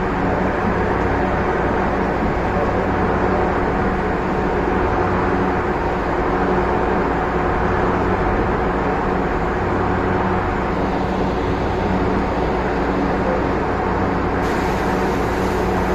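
Light-rail train running at a steady speed, heard from inside the driver's cab: an even rumble of wheels on track with a steady electric motor hum. A faint hiss joins in near the end.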